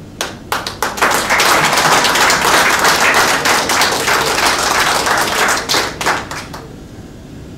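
Audience applauding: a few separate claps, then dense clapping for about five seconds that thins out into single claps and stops.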